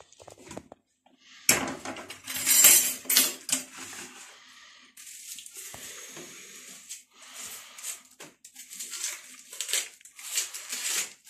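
Kitchen utensils and dishes clattering at the counter, loudest from about one and a half to three and a half seconds in. After that come softer, uneven scraping and knocking of a knife working on food laid on paper.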